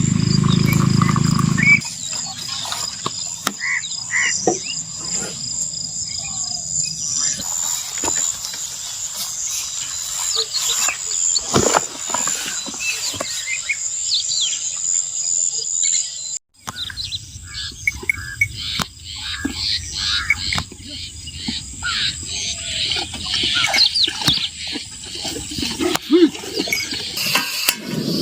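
Night outdoor ambience: insects keep up a steady high-pitched drone, with many short scattered chirps and calls over it. A low rumble cuts off about two seconds in, and the sound briefly drops out about sixteen seconds in before the chorus resumes over a low hum.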